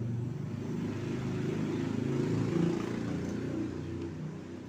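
A motor vehicle's engine running, growing louder to a peak about halfway through and then fading, as a vehicle passing by does.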